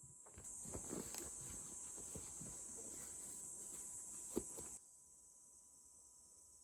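Steady high-pitched insect chirring outdoors, with scattered light knocks and one sharp click, cutting off abruptly about five seconds in.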